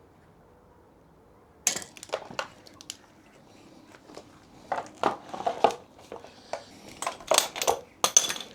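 Hand tools and metal engine parts clinking and rattling as a two-stroke motorcycle engine is stripped down. The clinks come in short irregular clusters, starting about two seconds in, with the loudest near the end.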